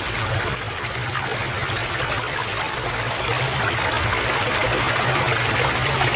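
Stream of water flowing steadily, an even rushing trickle.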